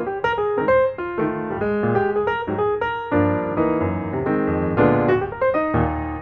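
Background piano music: a light melody over chords, with notes changing every fraction of a second.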